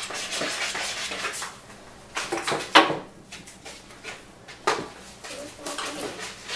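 Kitchen clatter: irregular knocks and rustling from containers and utensils being handled on a counter. The sharpest knock comes just before the middle.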